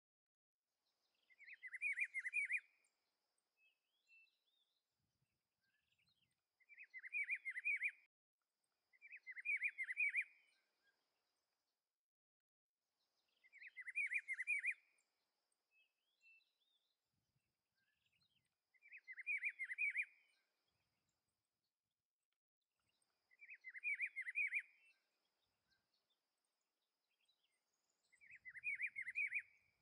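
Rufous-browed peppershrike (pitiguari) singing: seven short phrases of quick warbled notes, each about a second and a half long, repeated every few seconds.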